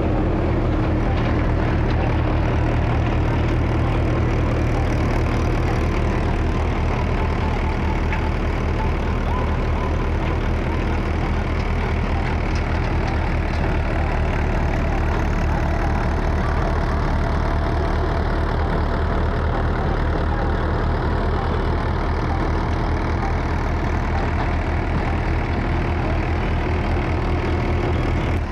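Mahindra tractor's diesel engine running steadily with a fast, even low beat while it drives a Punjab-type soybean thresher, which adds a steady rushing noise on top.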